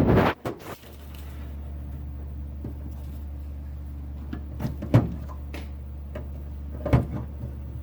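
Sharp clicks and snaps of soft aluminium rivets being set with a hand rivet tool: a quick cluster at the start, then single snaps about five and seven seconds in, over a steady low hum.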